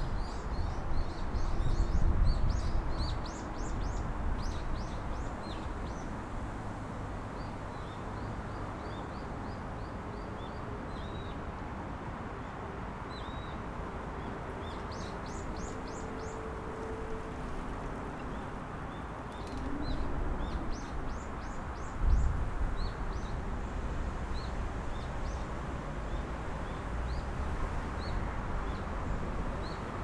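Small birds chirping in many short, high calls over a steady background rush. A low rumble swells in the first few seconds and again about twenty seconds in.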